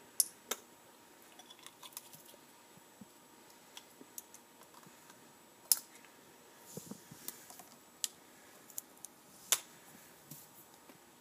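Scattered sharp clicks and taps at irregular intervals, a few of them much louder than the rest, over faint room tone.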